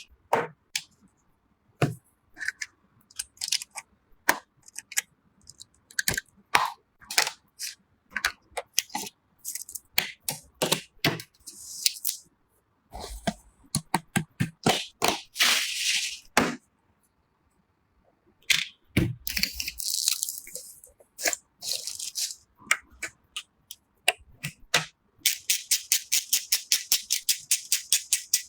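Clicks, knocks, rattles and rustles of computer parts and packaging being handled during a PC assembly. Near the end comes a quick, even run of clicks, about eight a second, for about three seconds.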